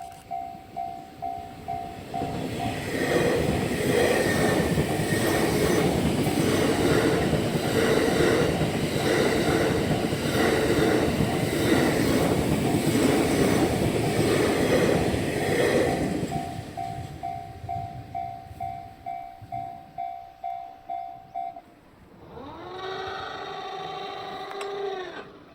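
Japanese level-crossing bell ringing in rapid repeated dings while the TRAIN SUITE Shiki-shima passes, its wheels clacking rhythmically over the rail joints for about thirteen seconds and drowning out the bell. After the train has gone the bell dings on alone and stops, and a horn then sounds for about two and a half seconds near the end.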